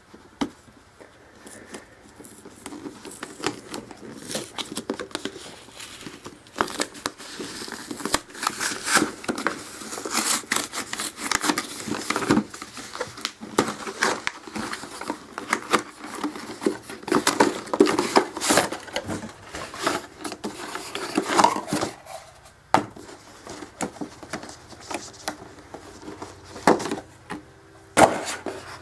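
Cardboard microphone box being torn open by hand, and its paper and plastic packing pulled out: irregular tearing, crinkling and rustling, dense for about twenty seconds, then thinning to quieter handling with a few sharp clicks.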